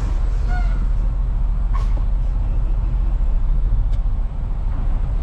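Heavy diesel truck engine idling, a steady low rumble, with two faint clicks, about two and four seconds in.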